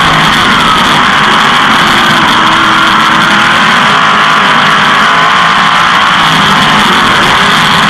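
A 360 sprint car's V8 racing engine running hard and loud without a break, its pitch swinging gently up and down.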